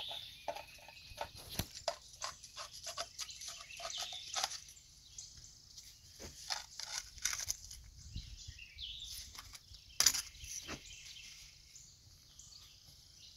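Irregular light clicks and scrapes as hard plastic packing rings are worked along a hydraulic cylinder ram's rod by hand, with one sharper click about ten seconds in.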